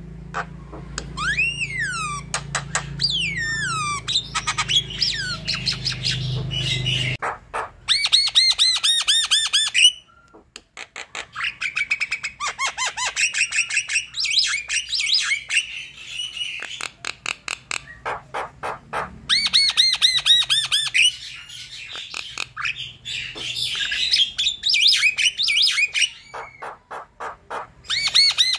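Javan myna singing hard: rapid runs of harsh, chattering squawks mixed with whistled notes that rise and fall, broken by brief pauses. A low background hum stops about seven seconds in.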